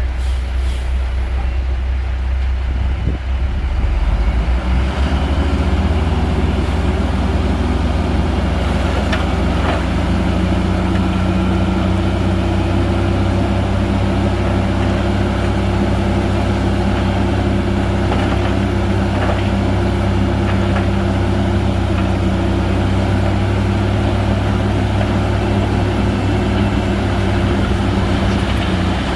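Heavy Shantui bulldozer's diesel engine running steadily under load while pushing stone. A higher engine note joins about five seconds in and holds until near the end, with a few faint clicks over it.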